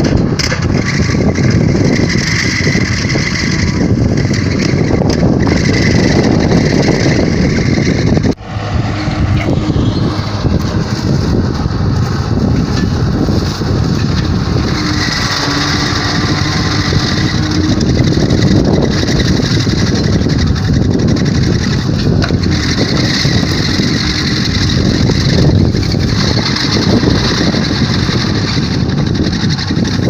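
Tractor engine under load driving a Vogel & Noot TST 300 mulcher, its rotor shredding the regrowth and soil, a loud steady mechanical noise that drops out briefly about eight seconds in.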